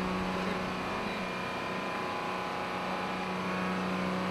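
Steady drone of running engine-driven machinery, with a constant low hum that does not change in pitch or loudness.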